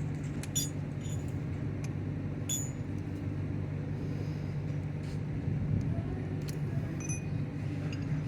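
Scattered light metallic clinks and rattles of an air hammer's chisel bits being handled and swapped, over a steady low hum.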